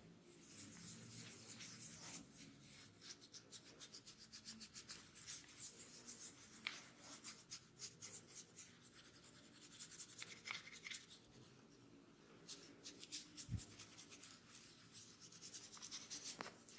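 Hands rubbing and working through long hair in a head massage: fast, faint crackling and rustling, with one soft low thump late on.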